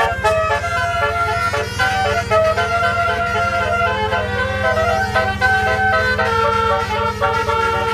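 Bus's basuri "telolet" multi-tone horn playing a melody of quickly changing notes, over the steady low rumble of the bus engine.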